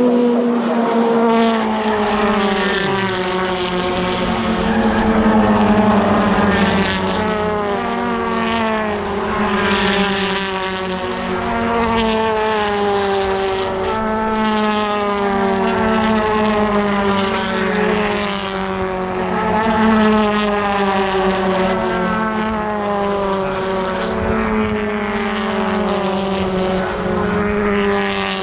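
A pack of BTCC touring cars racing past, several engines running hard at once with overlapping pitch that repeatedly rises and drops as they rev up and change gear, keeping up a continuous drone.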